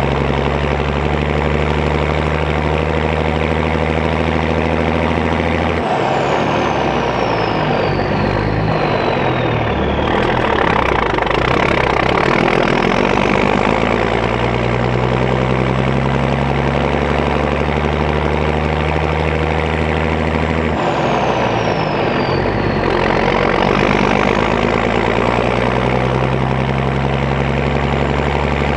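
Straight-piped Caterpillar 3406 diesel of a loaded International dump truck pulling steadily under way. Twice, about six and twenty-one seconds in, the engine note breaks off and a high whistle falls away as it changes gear, then the steady pull picks up again.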